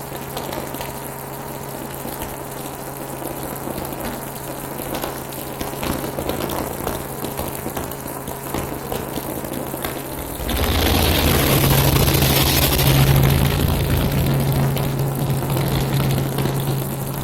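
Helicopter running with a steady low drone. About ten seconds in, a louder rush of noise comes in and holds.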